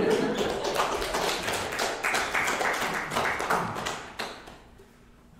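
Small audience clapping, dying away about four seconds in.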